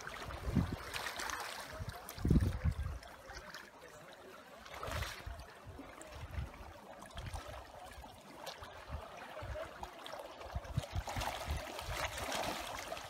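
Small waves lapping and splashing against a rocky lake bank, with low rumbling gusts of wind on the microphone, the strongest about two seconds in.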